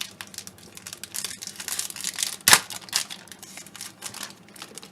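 Trading-card pack wrapper crinkling and tearing as a pack is opened, a dense run of crackles with one sharp loud rip about two and a half seconds in.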